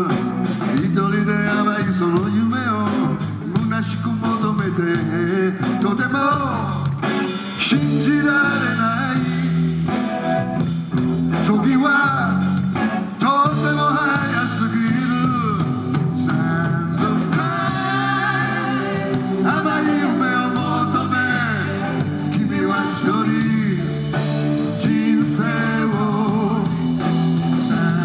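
A live rock band playing: a male lead singer sings over electric guitar, bass guitar and drums.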